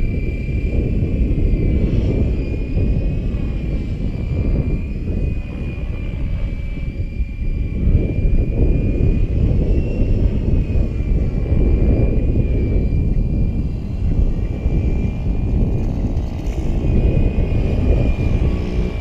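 Wind buffeting the microphone heavily, over the thin, steady high whine of an electric Gaui X5 RC helicopter flying at a distance, its pitch wavering slightly as it manoeuvres.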